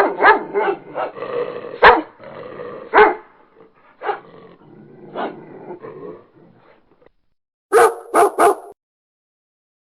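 A dog barking: a run of separate barks, about one a second, then a short pause and three quick barks in a row near the end, after which the sound stops.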